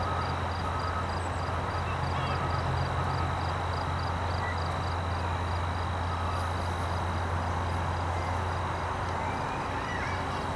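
Outdoor ambience of insects: a steady high trill with a rhythmic high chirp about three times a second, over a low steady hum, with a few faint short chirps.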